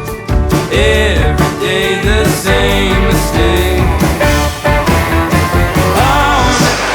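Background music: a rock song with a sung vocal line over a band with a steady beat.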